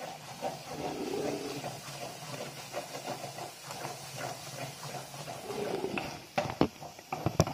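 Almond halwa (ground almonds in ghee with milk and sugar) sizzling and hissing in a kadhai on high flame while a wooden spatula stirs and scrapes it, the added milk cooking off. Several sharp knocks near the end.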